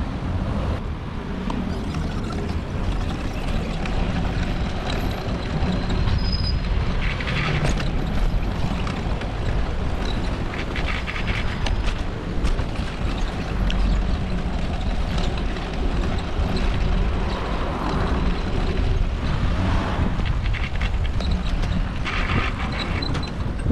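Steady low rumble of wind buffeting a moving microphone, over general city street noise.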